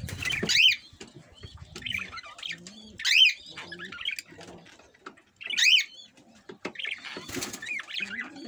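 Caged budgerigars, a cockatiel and lovebirds calling and chattering together, with three loud sharp calls about two and a half seconds apart among the softer chatter.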